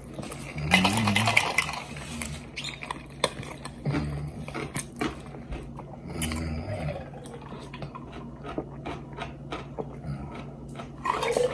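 Eating at a table: chewing and biting, with many short sharp clicks of cutlery and dishes.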